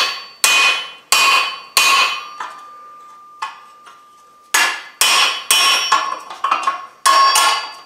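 Hand hammer striking a round hole punch driven through hot 1/8-inch mild steel on a JHM anvil, over the hardy hole, punching the hole through from the back side. Each blow rings metallically: four steady blows, a pause of a couple of seconds, then a quicker run of about seven blows.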